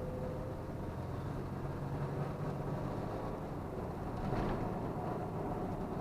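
2002 Toyota 4Runner driving, heard from inside the cabin: steady engine and road noise. The freshly installed remanufactured transmission runs quiet with no whining, a sign it is healthy.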